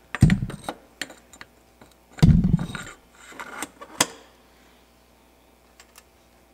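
Bicycle headset parts and fork being handled and fitted: scattered light metal clicks and clinks, two dull thumps about two seconds apart, and a sharp click about four seconds in.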